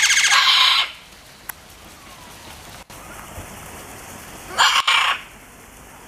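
Scarlet macaws giving two loud, harsh squawks, each under a second, one at the start and one about four and a half seconds in.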